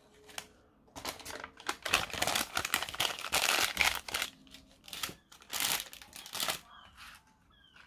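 Paper wrapping crinkling and rustling as it is handled, an irregular run of crackles starting about a second in and dying away after about six seconds.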